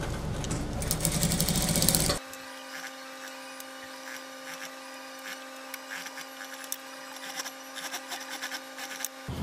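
Industrial lockstitch sewing machine stitching fast for about two seconds, then stopping abruptly. After that a steady electric hum with scattered small clicks.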